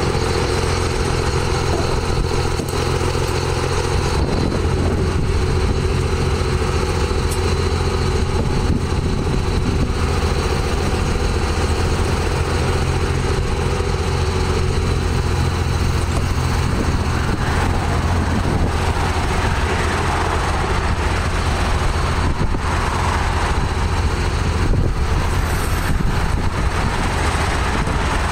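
A vehicle engine idling steadily, with some rustling noise coming and going in the second half.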